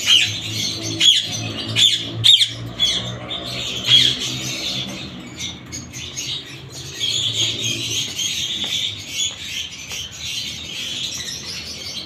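Indian ringneck parakeets squawking: a string of loud, harsh calls in the first four seconds, then quieter chattering and chirps.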